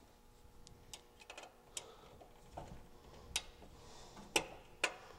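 Irregular sharp clicks and taps of wires and metal parts being handled and fastened inside a steel electrical junction box, the loudest a little over four seconds in.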